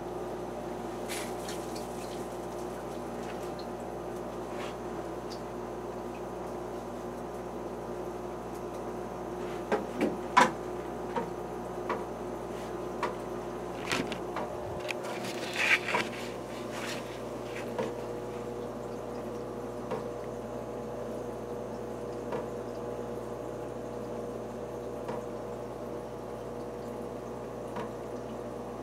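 Aquarium equipment running with a steady hum and a faint water trickle. From about ten to seventeen seconds in, a cluster of sharp clicks and taps sounds, the loudest about ten seconds in, followed by a few faint single ticks.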